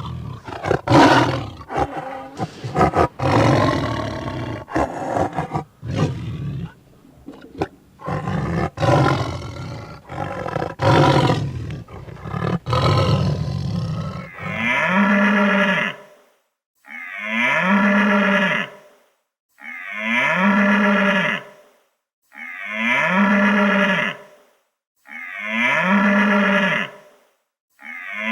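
Rough, irregular animal roaring and growling for about the first half, then a cow mooing six times in a row, each moo about one and a half to two seconds long, about every three seconds, all sounding alike.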